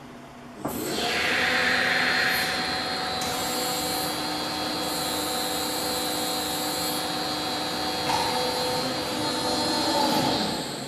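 Hydraulic drive of a Bystronic Xpert 150 CNC press brake starting abruptly less than a second in and running with a steady whine as the ram moves. Its pitch shifts about eight seconds in, and it winds down near the end.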